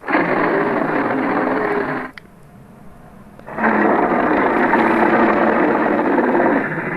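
Bear-Croc creature sound effect: two long, loud calls. The first lasts about two seconds. The second starts about three and a half seconds in and runs about three seconds.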